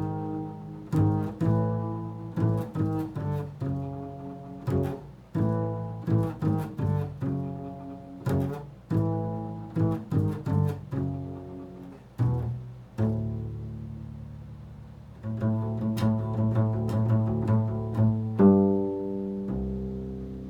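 Improvised instrumental music of low, plucked string notes in a loose run, each struck sharply and dying away, with a few longer notes left ringing in the second half.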